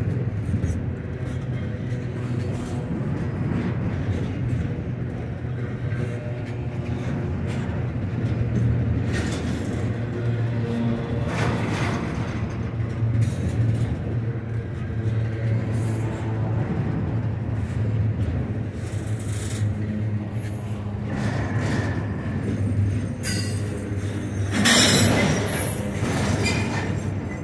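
Freight train running, a steady low rumble with short noisy flares, the strongest a few seconds before the end.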